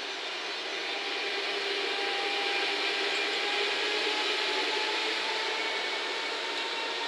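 JR Freight EF210 electric locomotive moving slowly through the yard: its inverter-driven traction motors whine in several steady tones over the rolling noise of wheels on rail. The sound grows a little louder over the first few seconds.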